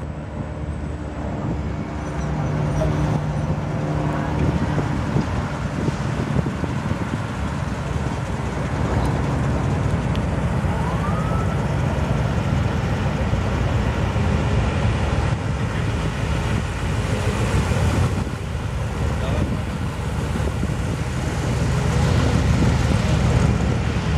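Classic cars driving slowly past one after another, their engines running with a steady low hum.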